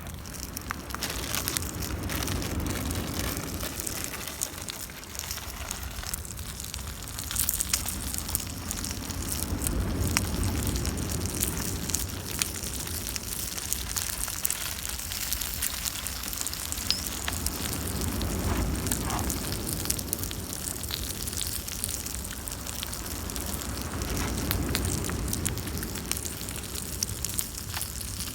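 Wood campfire crackling, with many sharp pops over a steady hiss and a low rumble that swells and fades several times.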